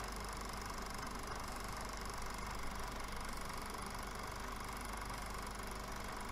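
Steady, unchanging mechanical drone with hiss and a low hum.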